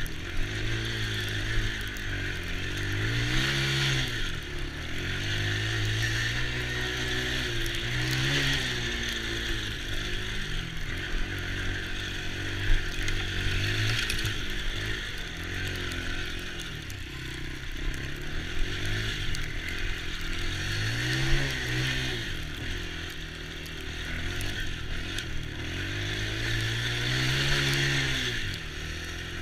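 Small youth ATV engine running and revving up and down again and again, its pitch rising and falling every few seconds.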